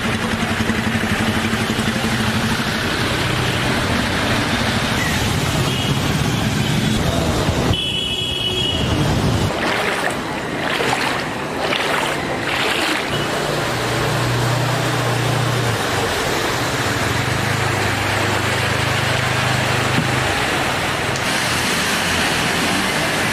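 Steady rush of water mixed with the hum of passing vehicle engines on a rain-flooded street.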